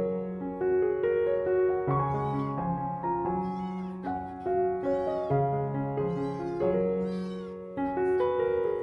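Small kitten meowing repeatedly, about five high, arching calls, over steady background piano music.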